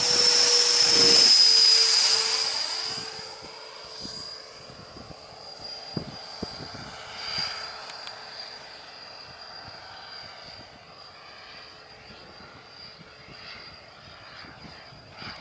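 JetFan 120 electric ducted fan of a large FlyEagle 1/5.5-scale RC jet on 14S packs, whining at full power. It is loud for the first two to three seconds, its pitch sagging slightly, then fades to a faint steady whine as the jet climbs away.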